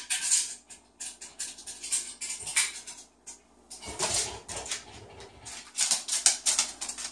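A cockatoo's feet tapping and scraping on a tiled floor as it walks: an irregular run of short scuffs and clicks, with a few heavier knocks about four seconds in.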